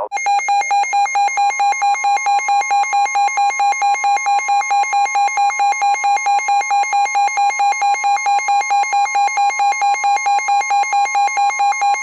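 Emergency Alert System-style attention tone: a steady two-tone electronic alarm that pulses about four times a second, after a brief upward glide at the start. It signals an incoming emergency alert.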